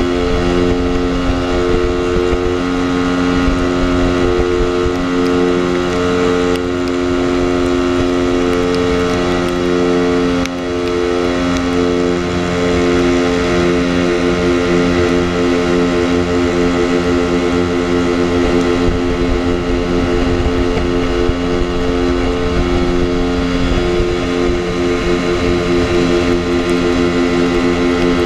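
Lambretta scooter's single-cylinder two-stroke engine running at a steady cruising speed, with wind rumbling on the microphone. The engine note dips briefly about ten seconds in.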